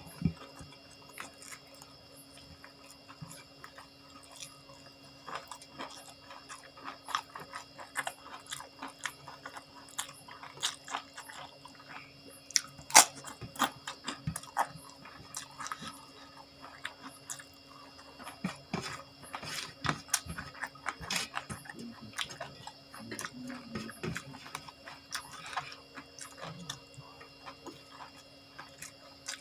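A person chewing and crunching food close to the microphone, with frequent sharp crunches, the loudest about 13 seconds in, over a faint steady hum.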